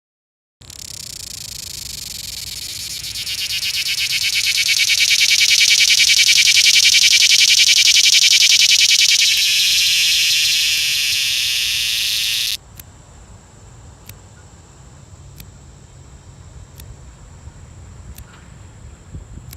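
Cicada singing at close range: a loud, rapidly pulsing buzz that starts half a second in, swells louder after a few seconds, then cuts off suddenly about twelve seconds in. After it stops, only a faint steady high tone with soft ticks about once a second remains.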